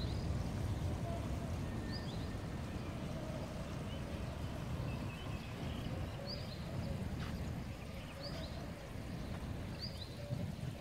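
Steady low outdoor background rumble, with a bird giving about five short, high, falling chirps a couple of seconds apart.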